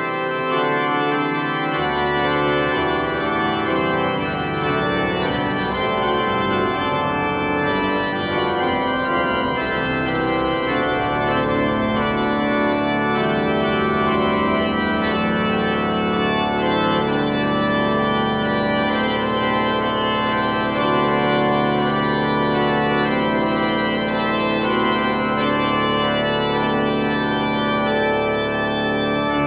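Background music of long sustained chords that shift every few seconds.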